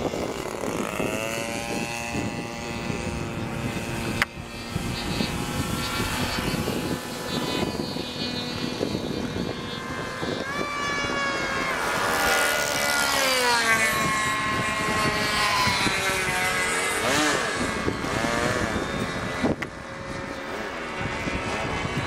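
Radio-controlled model airplanes flying, their motors and propellers buzzing with pitch that rises and falls as they turn and pass. One passes close about halfway through, louder, with a steep drop in pitch.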